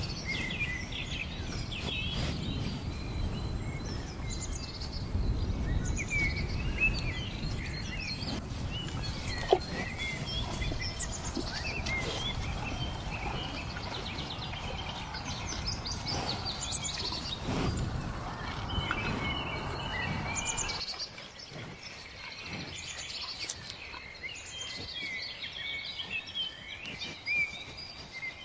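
Small birds chirping and twittering in a busy, overlapping chorus over a low background rumble of outdoor noise. The rumble cuts off abruptly about three quarters of the way through, leaving the birdsong over a quieter background.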